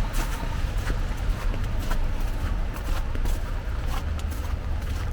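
Footsteps on wet snow and slush, about two steps a second, over a steady low rumble.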